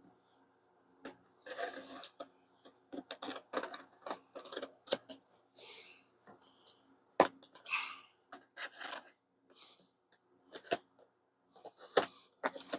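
Handling of a small utility knife and a cardboard box: irregular sharp clicks and short scratchy scrapes, with the knife brought to the box's taped edge near the end.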